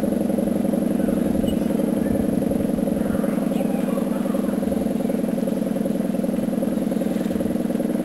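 Federal Signal 500-DH-TT dual-tone outdoor warning siren sounding steadily, its two tones held together as one loud chord at a constant pitch.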